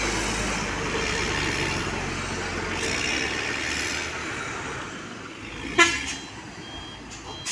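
Heavy vehicle engine running steadily and slowly fading, with one short horn toot about six seconds in.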